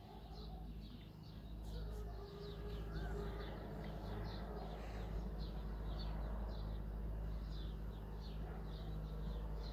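A small bird chirping over and over, about three short chirps a second, over a steady low rumble.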